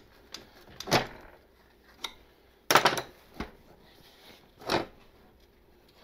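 A wrench and loose steel parts clinking and clunking as the rear axle nut is walked off a 1970 Honda CB/CL 350's axle and the nut, washer and chain adjuster plate are handled. There are a few separate knocks, the loudest about three seconds in.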